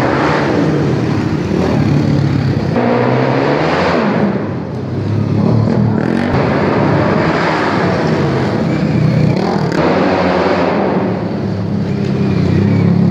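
Dirt bike engines revving hard and backing off as the bikes race through a corner of a dirt track. The pitch climbs and falls in repeated waves every few seconds, with several engines overlapping.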